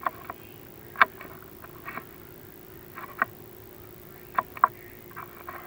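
Chimney inspection camera and its cable knocking against the walls of a masonry flue as it is lowered: about ten irregular sharp clicks and taps over a faint steady hum.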